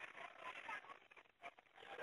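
Near silence, with faint distant voices in short broken snatches.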